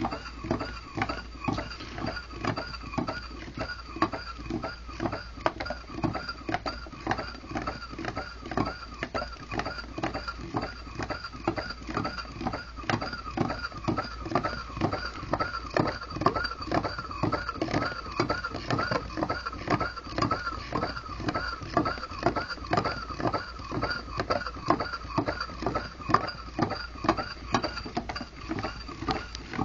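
Homemade Pringles-tube Stirling engine with a gravity-driven displacer running steadily at about 100 rpm, knocking at an even rhythm of about two a second.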